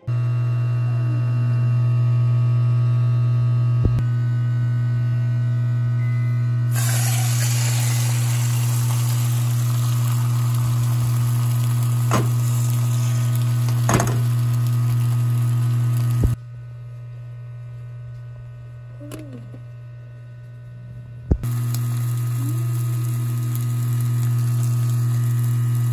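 Egg-coated tofu slices sizzling in a frying pan over a loud, steady low electrical hum with a whine of overtones. The sizzling comes in about a quarter of the way through and stops past the middle, with a few sharp clicks. The hum drops for several seconds and then returns.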